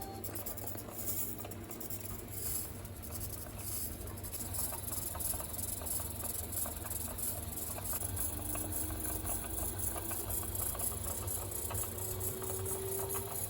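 Panasonic drum washing machine with its drum turning, giving a steady run of small grinding creaks (the 'giri-giri' noise) over a low hum. This is the sign of a stretched drive belt between motor and drum, which will soon come off and trigger error H35. A faint motor whine rises slowly in pitch over the last few seconds.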